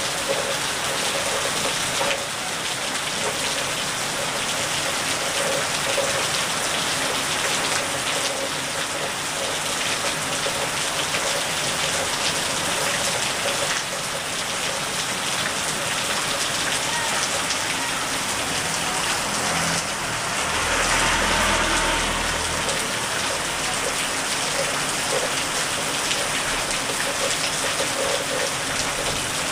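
Steady rain falling on wet pavement. About two-thirds of the way through, a louder, deeper swell lasts a couple of seconds.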